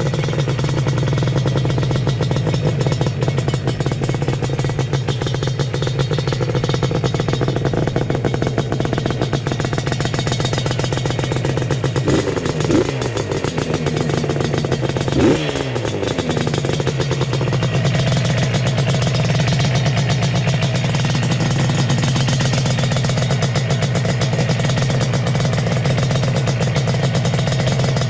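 Yamaha RD350's two-stroke parallel-twin engine idling as it warms up on its first run with freshly fitted CNC-machined cylinder heads, with a crisp note off the exhaust. Twice, about 12 and 15 seconds in, the throttle is blipped and the revs rise and fall back to idle.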